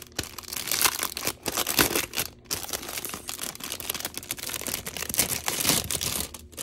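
Packaging crinkling and rustling as it is handled and unwrapped, a rapid, irregular run of crackles.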